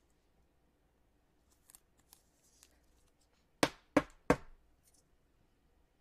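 Trading card being put into a rigid plastic top loader: faint rustling of card and sleeve, then three sharp plastic clicks in quick succession, about a third of a second apart, a little past the middle.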